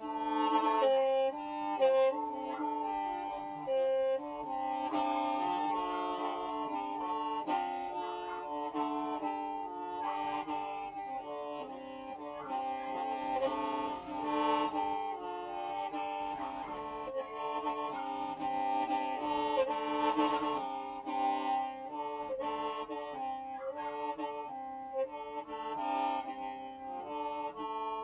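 Hmong qeej, a free-reed bamboo mouth organ, playing: several reed pipes sound at once, a melody moving over held tones.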